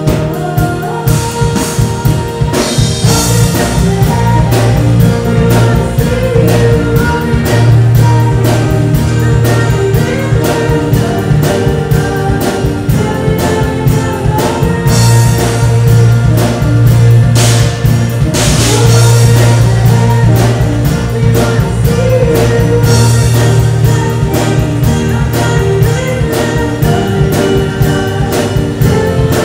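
Live worship band playing: a drum kit keeping a steady beat under electric guitars and keyboard, with a sustained bass line.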